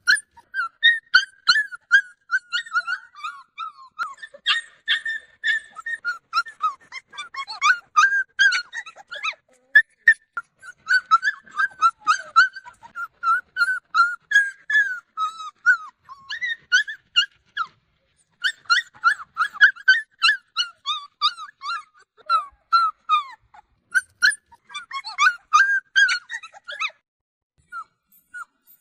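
Several dogs whining and crying for attention: a continuous stream of short, high-pitched whimpers and yelps that rise and fall in pitch, with brief lulls about two-thirds of the way in and near the end.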